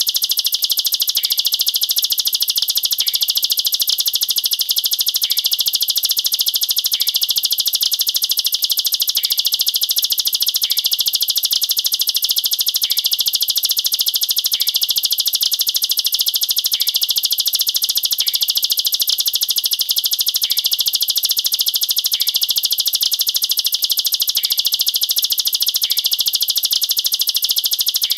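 Plain prinia (ciblek sawah) singing its rapid, dense 'nembak rapat' song, a high, unbroken trill held at an even level throughout.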